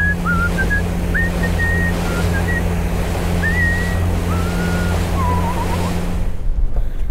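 Boat running at sea: a steady engine hum under a rush of water and wind noise. Thin, sliding whistle-like tones come and go above it. The hum drops away about six seconds in, leaving gusty wind noise.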